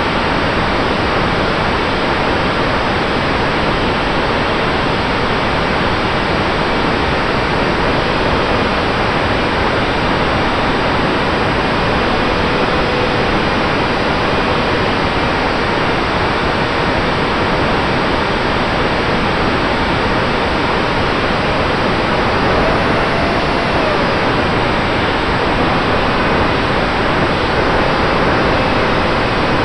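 Steady, even static hiss, loud and unchanging, with faint steady tones underneath: the noise recorded along with the FPV video feed from a small RC plane in flight.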